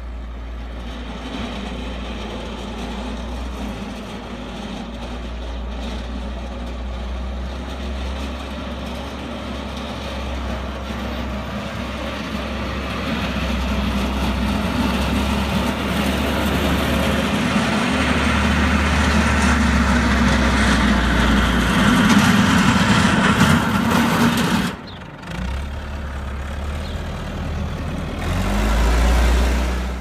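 New Holland 655E backhoe loader's diesel engine running as it plows snow with its front blade, growing louder as the machine comes closer. The sound drops off suddenly near the end, then picks up and swells again.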